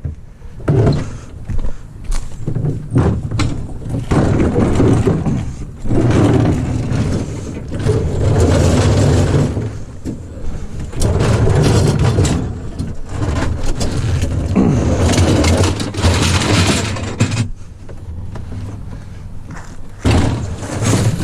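Scrap being loaded onto the back of a pickup truck: irregular scraping, shuffling and knocks, in loud bursts with short lulls between them.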